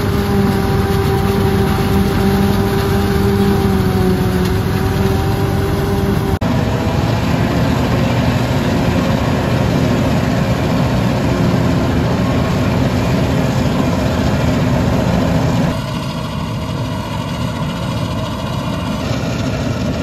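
Claas Jaguar 970 self-propelled forage harvester running under load as it chops standing corn for silage: a steady heavy engine rumble with a steady pitched whine on top. The sound shifts abruptly about six seconds in and again near the end.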